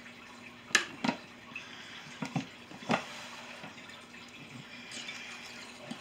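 Sharp clinks of a spoon and a flour scoop against a glass mixing bowl as flour is worked into mashed potatoes: about five in the first three seconds, then quieter stirring. A low steady hum runs under them.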